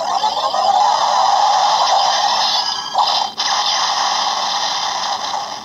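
Electronic sound effect played through the small speaker of a DX Sengoku Driver toy belt. It is a harsh, hissy burst with no bass, breaks briefly a little past three seconds in, and cuts off abruptly at the end.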